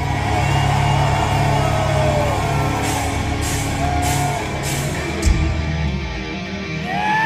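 Hard rock band playing live in a concert hall: a sustained low bass note under electric guitar, with a few cymbal crashes a little past the middle.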